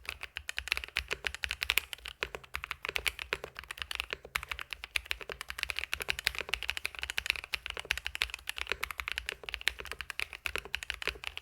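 Mechanical keyboard with fully lubed Grain Gold Lemon Cedar switches being typed on quickly and continuously: a dense stream of keystroke clacks.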